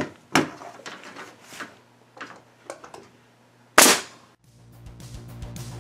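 Nail gun firing nails into the wooden boards of a fixture housing: two sharp shots near the start, a few lighter taps, then the loudest shot, followed by a short hiss, a little before four seconds in. Guitar music fades in near the end.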